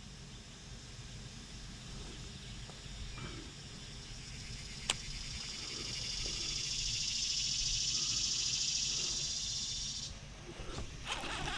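A cicada buzzing high and steady, swelling up from about halfway through and cutting off suddenly near the end. There is a single sharp click a little before the buzz begins, over faint outdoor background.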